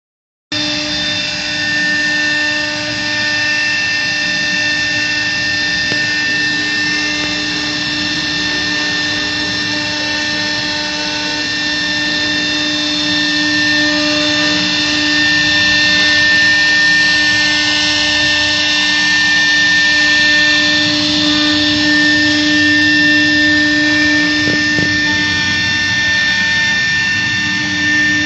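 Apextech 1325 CNC router's spindle running at speed while the bit cuts wood: a loud, steady whine of several tones over the hiss of the cut.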